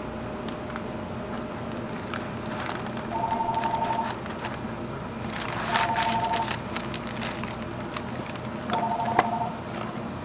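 An electronic beeper sounds three short, fast-pulsing beeps about three seconds apart, over the rustle of paper wrapping and a kraft-paper box being folded shut by hand, with a sharp click near the end.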